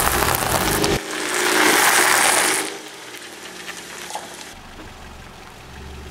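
Salted pretzel sticks crunching and crackling as a car tyre rolls over them: a dense crackle that stops almost three seconds in. Background music plays for the first second and cuts off.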